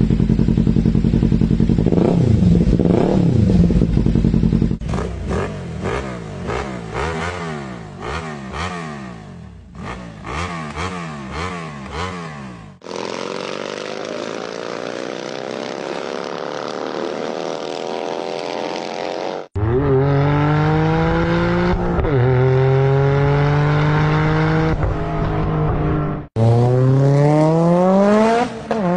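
A run of hard-cut clips of two-cylinder engines: an inline twin running and revving, then a flat twin whose pitch falls away and then climbs as it accelerates. About 26 s in, it cuts to an inline-four engine accelerating with a steadily rising pitch.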